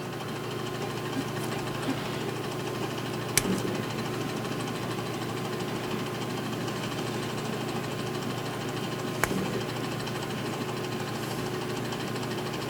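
Steady low mechanical hum with a faint steady tone, like small bench equipment running. Two sharp clicks break it, about three seconds in and about nine seconds in.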